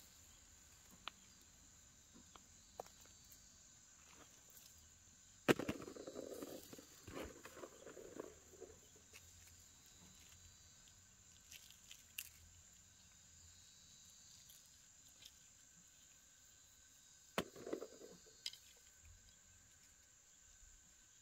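Handling of spiny chestnut burrs on stony ground with a large blade: sharp clicks and brief rustling, the loudest knock about five seconds in and another later on. A faint steady high insect drone runs underneath.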